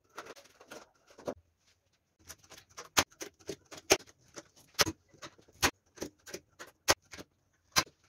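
Hand pop-rivet gun being squeezed to set blind rivets through a thin sheet-metal body panel, making sharp clicks, the loudest about once a second. Near the start, the sheet metal rustles and knocks as it is positioned.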